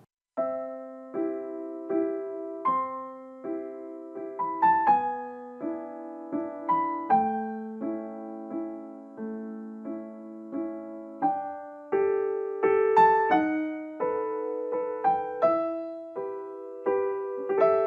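Soft, gentle piano music playing chords that ring and fade one after another, as an outro tune.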